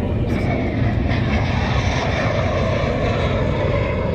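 Jet aircraft flying past low, its engine noise steady with a pitch that slowly falls.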